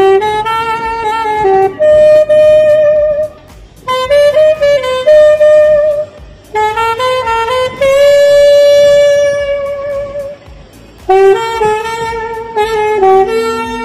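Alto saxophone playing a slow melody in phrases of held notes, with short breaks for breath and one long held note about eight seconds in.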